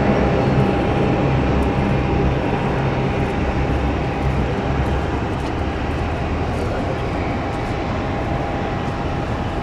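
Jet airliner engines, a loud steady rumble with a thin steady whine on top, slowly fading as the aircraft moves away.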